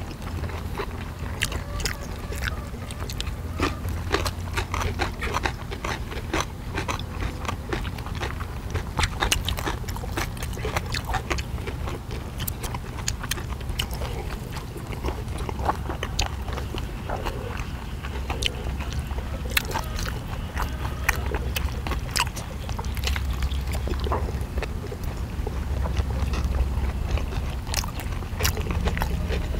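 Close-miked eating sounds of several people biting into and chewing steamed pheasant dumplings and pickled side dishes: wet mouth noises and many short clicks, over a low steady hum.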